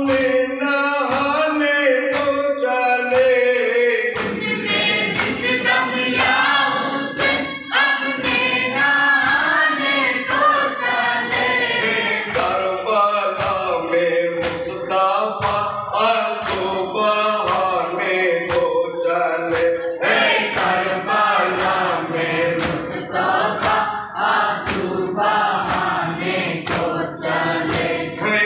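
A group of men chanting a Muharram lament (noha) together in matam, with sharp hand strikes beating time about three every two seconds. The voices hold one long note for the first few seconds before the chant moves on.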